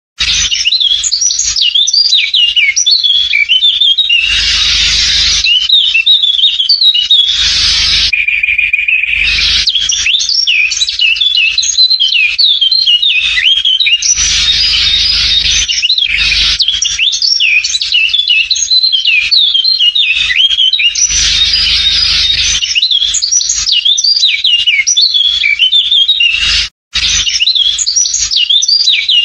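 Many birds chirping continuously in a dense chorus of quick calls. A few short bursts of rushing noise come through it, and the sound cuts out for a moment near the end.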